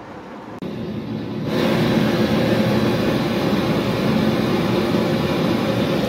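Gas brazing torch burning with a steady hiss. Its flame comes on about a second and a half in, for brazing a joint on the fridge compressor's copper pipework.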